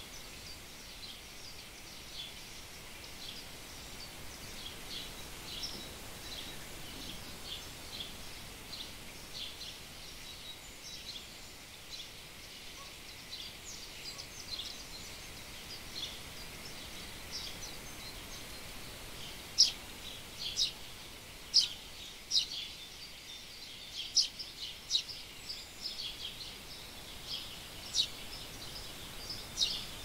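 Small birds chirping and calling in quick, short notes throughout, with a run of louder, sharper calls in the second half.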